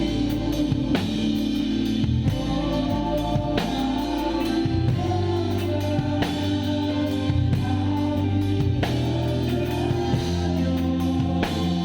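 A live band playing a gospel-style worship song: drum kit with singing voices and guitar over held low notes, with occasional cymbal or snare accents.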